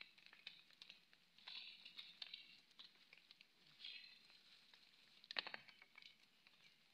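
A hand scraping and breaking into the earth of a termite mound, soil crumbling and pattering down in a few short bursts, the loudest about five and a half seconds in.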